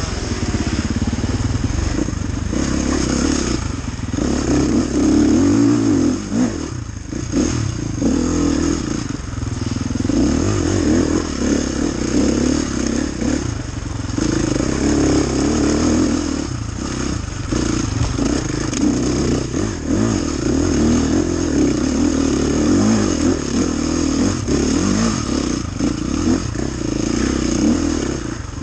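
Dirt bike engine running hard under racing throttle, revving up and easing off again and again.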